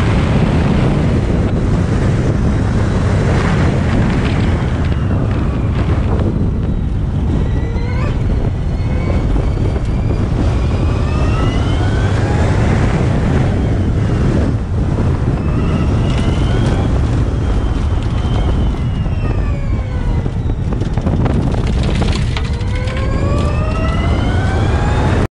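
Porsche Formula E car's electric powertrain whining, its pitch rising several times under acceleration and falling when slowing, over a heavy rumble of wind and road noise on the onboard microphone.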